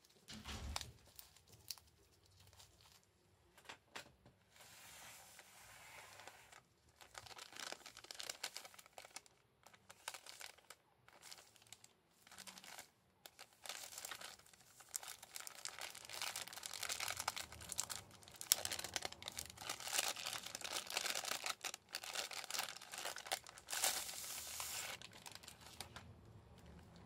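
Thin clear plastic wrapping crinkling and crackling as it is handled and worked off a wallet box. There are scattered crackles at first, then a long dense stretch of crinkling from about halfway through that eases off shortly before the end.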